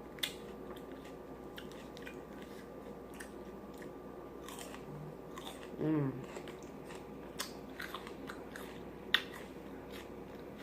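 Close-miked person chewing food with mouth smacking and scattered sharp wet clicks. A short voiced hum comes about six seconds in.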